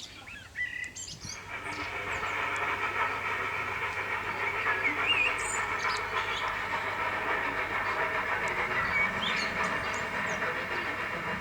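A train running steadily, its sound building about a second in and easing off near the end, with birds chirping.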